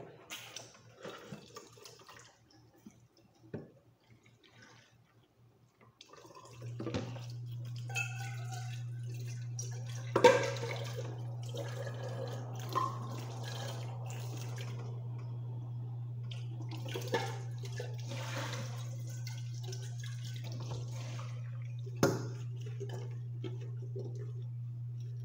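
Dishes being washed at a kitchen sink: light clinks of dishes at first, then the tap turned on about six seconds in, running water with a steady low hum and splashing that swells and fades as plates are rinsed under it. Sharp clatters of dishes come twice, the loudest about ten seconds in.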